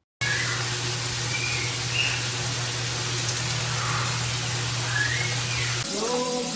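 Water spraying from a shower head: a loud, steady hiss that starts abruptly, with a low steady hum under it. The hum stops near the end, when pitched tones begin.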